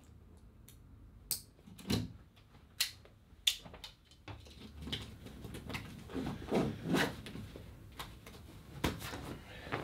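Backpack being packed by hand: a few sharp clicks and knocks in the first few seconds, then steady rustling of fabric and bag handling, with another click near the end.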